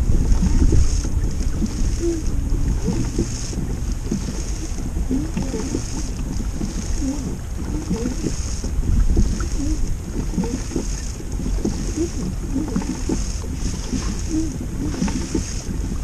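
Wind buffeting the microphone in a steady low rumble, over the sound of moving water.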